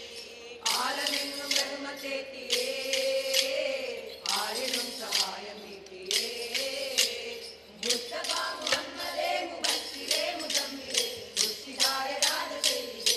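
Kolkali stick dance: short wooden sticks clacked together in rhythm, faster near the end at about three strikes a second, over group singing of the accompanying song.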